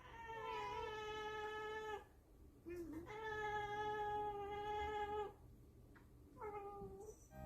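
Domestic cat giving three drawn-out meows, each held at an even pitch. The first two last about two and nearly three seconds, and the last is short.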